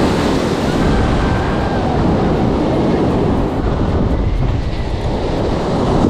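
Strong wind rumbling and buffeting on the microphone, over the steady wash of surf breaking on the beach.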